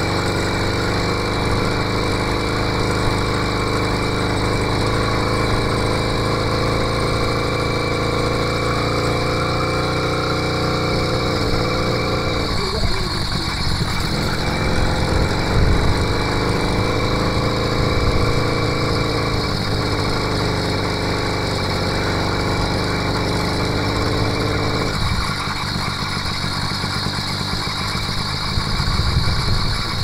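Engine of an 80cc two-stroke motorized-bicycle kit running as the bike rides along. Its steady note breaks off briefly about twelve seconds in, then returns, and changes to a rougher, less even sound for the last few seconds.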